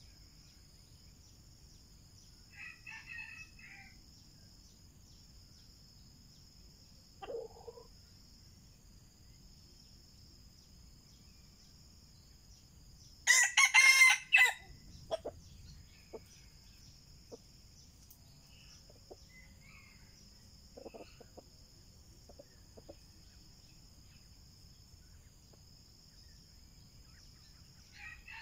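Red junglefowl rooster crowing once, a short loud crow about halfway through. A few softer, brief calls come before and after it.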